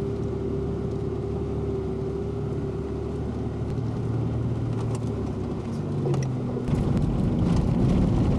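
Four-wheel-drive's engine running steadily at low speed on a rough dirt track, heard from inside the vehicle. A little before the end the sound turns louder and rougher.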